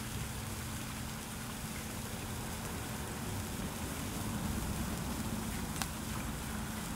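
Sparklers burning, a steady fizzing crackle, with one sharper pop about six seconds in.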